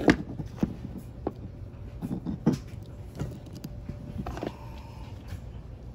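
Scattered small clicks and taps of a screwdriver and metal parts as the small cover screws of an Echo SRM-2620 trimmer's carburetor are driven in. The sharpest clicks come right at the start and about two and a half seconds in.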